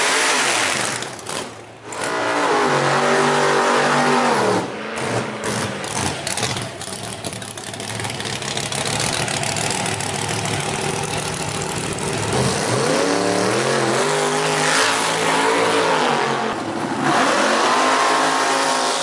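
Drag racing car engines revving hard and accelerating, the engine note climbing in pitch in several long pulls and dropping back between them.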